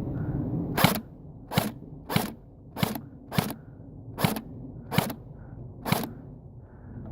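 Airsoft gun firing single shots: about eight sharp cracks at an uneven pace, roughly one every half second to a second.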